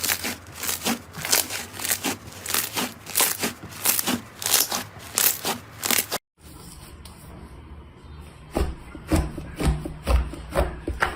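Slime being squeezed and pressed, giving a rapid run of crackling, crinkly clicks. It cuts off abruptly about six seconds in, and after a quieter stretch a series of low soft thuds begins.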